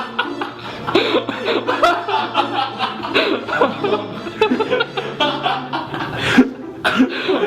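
Several people laughing and chuckling.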